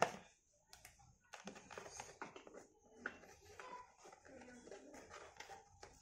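Faint clicks and light rustling of black plastic fasteners being twisted loose from a cardboard box insert, with one sharper click about three seconds in.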